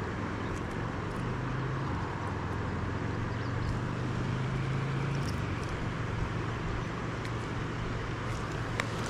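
Steady rush of a shallow river running over rocks, with a low steady hum underneath and a few faint ticks.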